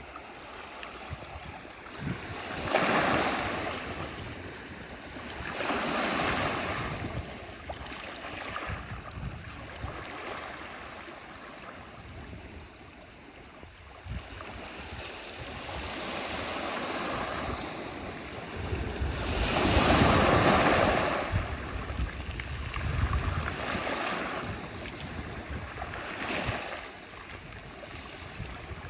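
Sea waves breaking and washing in, rising and falling in a series of surges every few seconds, the biggest about twenty seconds in.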